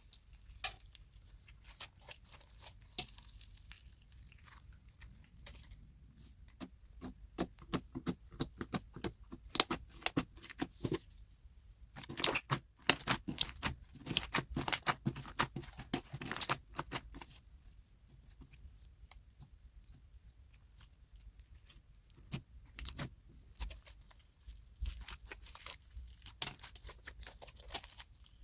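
Slime being squished and pressed by hand: a run of small sticky clicks and crackles, thickest and loudest through the middle stretch and sparser near the end.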